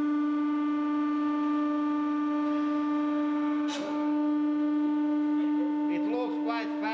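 Hydraulic press's pump running with a steady, even-pitched hum as the ram presses down on a Play-Doh figure. A short sharp click just before four seconds in, and some brief warbling, voice-like sounds near the end.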